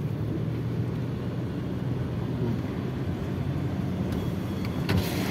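A car's engine running with a steady low hum while floodwater rushes and sloshes against the car as it wades through deep standing water, heard from inside the cabin. A brief knock sounds near the end.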